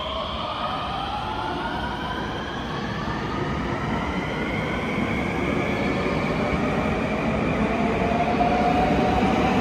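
A 521-series electric multiple unit pulling away from the platform and accelerating. Its inverter-driven traction motors give several whining tones that slowly rise in pitch over the rolling rumble of the wheels, growing gradually louder.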